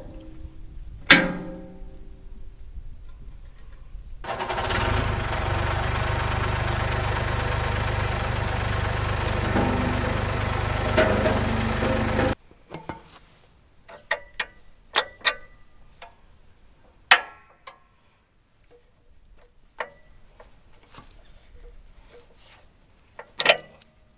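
Sparse plucked-string background music, cut by about eight seconds of a Massey Ferguson 1835E compact tractor's engine running steadily. The engine sound starts and stops abruptly.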